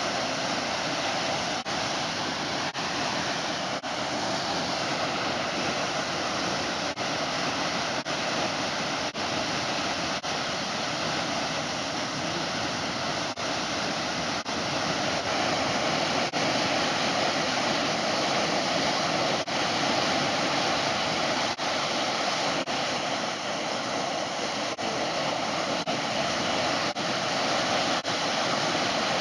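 Waterfall: a steady rush of falling water, rising a little about halfway through.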